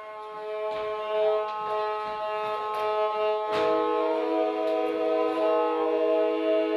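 Kobyz ensemble (Kazakh horsehair-bowed fiddles) playing held notes that sound together, with a new lower note coming in sharply about three and a half seconds in.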